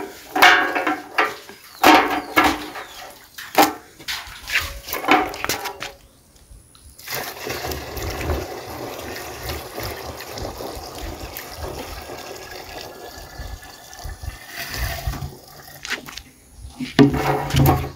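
Water poured from a plastic jerrican into another jerrican: a steady splashing pour that starts about seven seconds in and lasts some nine seconds.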